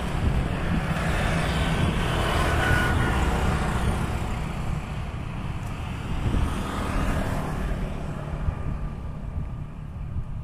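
Wind buffeting the microphone outdoors: a steady, fluttering low rumble with a broader hiss above it that fades toward the end.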